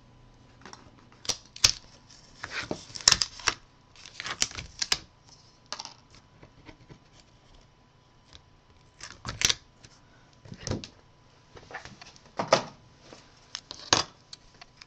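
Irregular clicks, taps and short scratchy rustles as a craft pick lifts a cut paper halo off a sticky cutting mat and the paper is handled.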